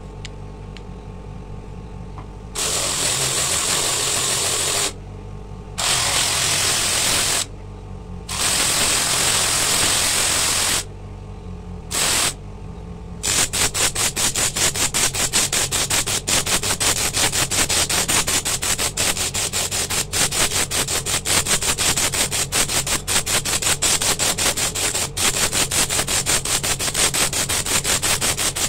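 Electric disc sander running, with coconut shell pressed against the spinning sanding disc in several grinding stretches of about two seconds each. From about halfway through, the grinding becomes continuous and pulses about four times a second.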